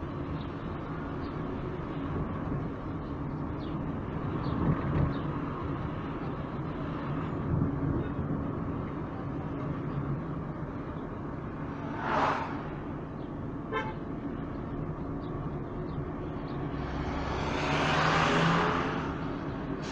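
Steady engine hum and road noise from the vehicle the camera rides in as it drives along. A brief louder noise comes about twelve seconds in, and a louder swell builds and fades near the end.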